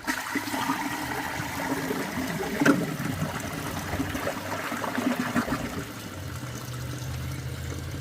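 Eljer St. Clair front-flush toilet flushing: water rushing and gurgling through the bowl. About six seconds in, a low steady hum comes in under the water sound.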